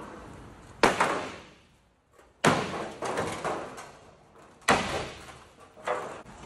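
Four heavy bangs, spaced one to two seconds apart, each dying away over about a second.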